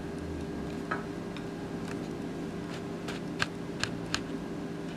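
Faint scattered clicks and crackles of shredded white cabbage being handled and pressed into a soft hot dog bun by fingers, over a steady low hum.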